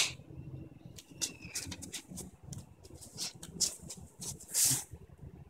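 A baby's hands and knees tapping and scuffing on a woven plastic floor mat as she crawls: a run of short soft taps and rustles, with a louder swish near the end.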